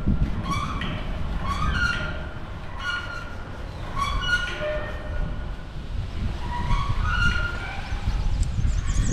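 Wind buffeting the microphone high on the tower, a fluctuating low rumble, with a short high squeak repeating about once a second.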